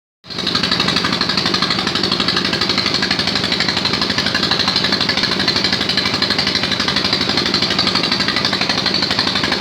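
Deep-well drilling machine running steadily, its engine and drilling gear making a loud, fast, even pulsing rattle.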